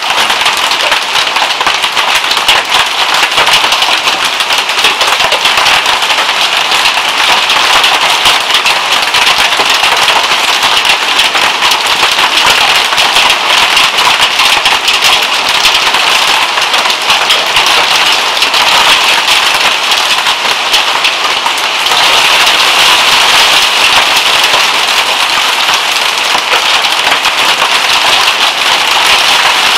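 Heavy hail and rain pelting down on the roof overhead and the surroundings: a loud, dense clatter of countless small impacts, which gets louder about two-thirds of the way through.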